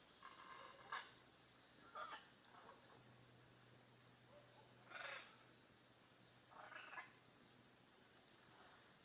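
Faint outdoor ambience with distant bird calls: a few short calls spaced a second or two apart, small high chirps, and a steady thin high tone underneath.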